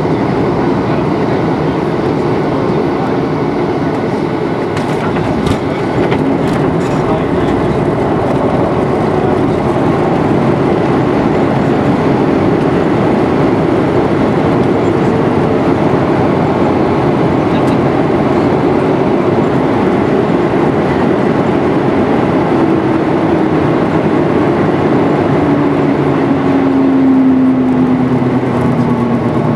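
Cabin noise of a Boeing 737-800 touching down and rolling out: a loud, steady rush of engines, airflow and wheels on the runway, with a few knocks and a rise in level around five to seven seconds in as the main gear meets the runway. Near the end the CFM56 engines' whine falls steadily in pitch as they spool down on the rollout.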